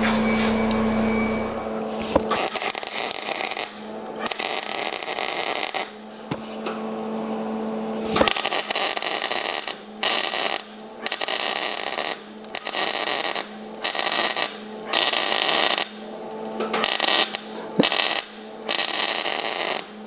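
MIG welding arc from a Longevity Migweld 140, crackling in a run of short stitch welds on steel tubing. Each burst lasts about half a second to two seconds with brief pauses between, starting about two seconds in.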